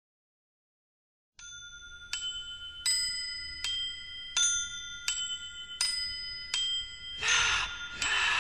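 Title music: a slow melody of single bell-like struck notes that ring on, one about every three-quarters of a second, starting about a second and a half in. Near the end a fuller, hissier layer joins and the music grows louder.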